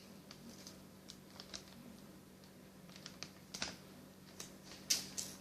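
Light clicks, taps and rustles of a mailed parcel's plastic packaging being handled and picked at by hand to open it, growing busier in the second half with a sharper snap about five seconds in.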